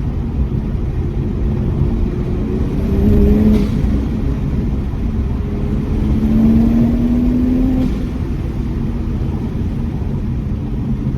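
Toyota Supra with an aftermarket MST intake and downpipe accelerating twice, heard from inside the cabin: a rising engine note about three seconds in and again from six to eight seconds. Each pull ends in a brief hiss of turbo flutter as the throttle closes. Heavy wind and road noise run underneath throughout.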